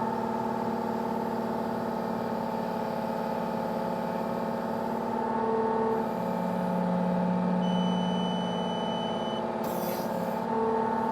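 Excavator diesel engine running at high speed under hydraulic load while the boom and stick cycle through a lift. About six seconds in a stronger low tone joins it for a few seconds, with a thin high tone near the eight-second mark, and a short hiss comes just before the end.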